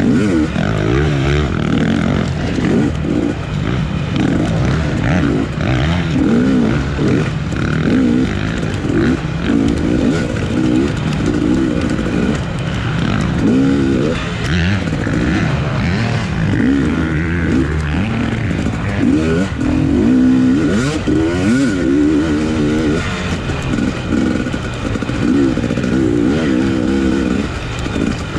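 A 250cc off-road race motorcycle's engine revving hard under load, its pitch rising and falling over and over as the throttle is worked on and off.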